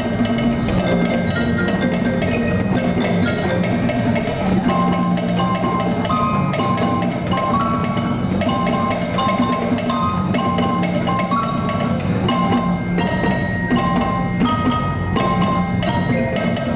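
Percussion ensemble playing a fast piece on cowbells: quick runs of short ringing notes that step up and down in pitch, over a steady pattern of other percussion.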